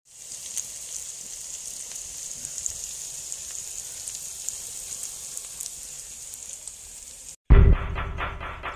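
Chicken pieces frying in hot oil in an aluminium pot: a steady sizzling hiss with small crackles. About seven and a half seconds in it cuts off and music with a heavy beat starts.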